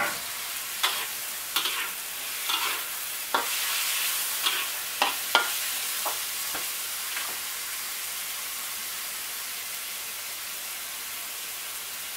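Chicken and asparagus sizzling in a wok while a metal spatula scrapes and clacks against the pan as they are stir-fried. The sharp spatula strokes come about ten times in the first seven seconds, then only the steady sizzle goes on.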